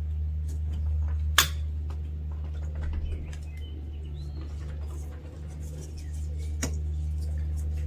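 Long-nose pliers and a spring hose clip clicking as a rubber hose is worked onto the nozzle of a diesel exhaust gas pressure sensor. There are two sharp clicks, one about a second and a half in and one near the end, over a steady low hum.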